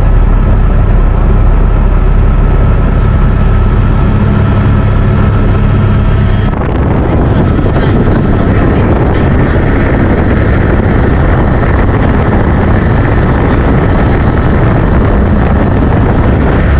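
Helicopter in flight heard from inside the cabin: a loud, steady engine and rotor drone with wind noise on the microphone. About six and a half seconds in, the sound turns duller and rougher.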